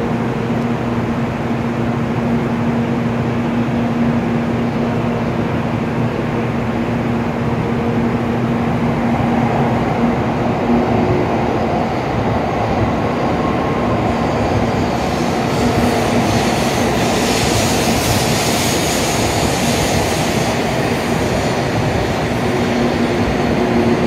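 N700A Shinkansen train arriving and rolling along the platform: a continuous running rumble with a steady low hum. A hiss swells up and fades again about two-thirds of the way through.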